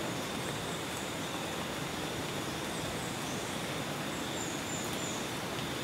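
Tropical rainforest ambience: a steady even hiss with a continuous high insect drone, and a few faint high bird chirps about three seconds in and again near the end.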